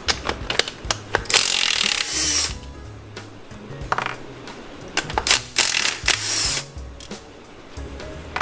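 Cordless power tool running in two bursts of just over a second each, spinning out the housing bolts of a transfer case. Sharp clicks and knocks of the tool and bolts come in between.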